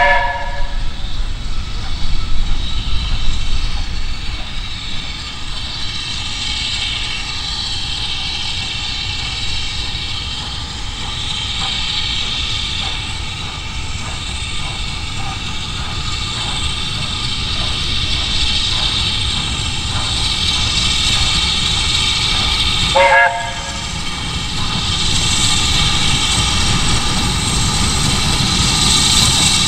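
Steam locomotives hissing steam steadily, with two short whistle blasts, one right at the start and one about three-quarters of the way through, as BR Standard Class 4MT 4-6-0 No. 75014 moves forward.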